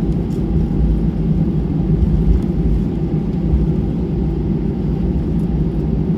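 Cabin noise inside an Airbus A320 as it taxis after landing: a steady low rumble of the engines and the wheels rolling on the taxiway.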